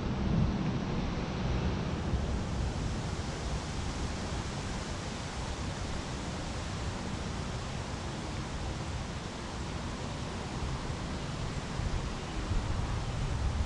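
Steady wind on the microphone: an even hiss with a fluttering low rumble.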